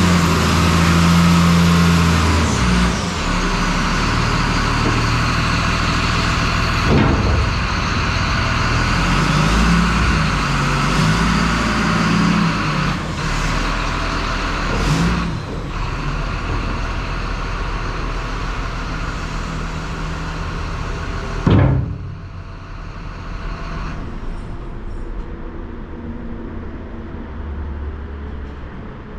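Heavy vehicle engine running steadily, with a few clunks like doors. After a loud bang about two-thirds of the way through, the sound drops off and gets quieter.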